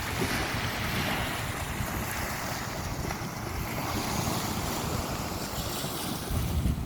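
Sea surf washing onto a beach, a continuous rushing wash of waves, with wind rumbling on the microphone that grows louder near the end.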